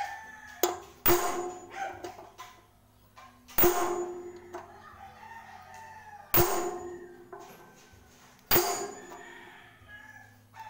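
Hammer blows on a steel bar used as a drift, driving a bearing hub into its seat in a concrete mixer drum: about five sharp metallic clangs a couple of seconds apart, each ringing briefly. The hub is being driven fully home, since a loose fit wears the bearing out quickly.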